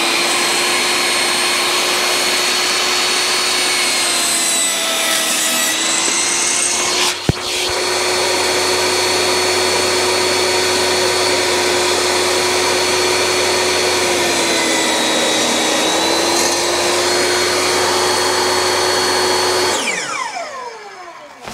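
DeWalt jobsite table saw running with a steady high whine. Its pitch sags twice as the blade cuts through a board, and there is a sharp click about seven seconds in. Near the end the saw is switched off and winds down with a falling whine.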